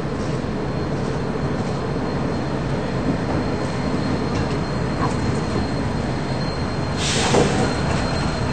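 Tram running along street track towards the listener and passing close by. Its wheel and running noise swells into a loud hiss about seven seconds in as it draws alongside.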